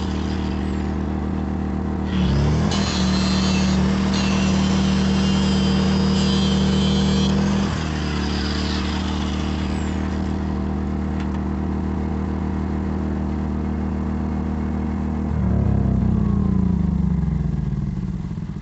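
Corded angle grinder cutting through steel rebar in a concrete footer, with a harsh grinding hiss from about two to eight seconds in, then running free. Near the end it is switched off and winds down, its pitch falling as it fades.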